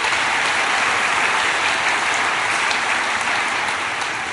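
Audience applauding, a steady wash of clapping that slowly tapers off near the end.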